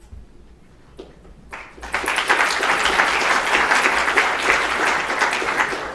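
An audience applauding. The clapping starts about a second and a half in and dies away near the end.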